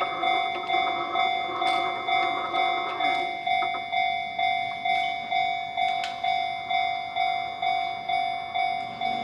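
Railway level-crossing warning bell ringing its 'kan-kan' alarm, even clanging strikes about twice a second, signalling that a train is approaching.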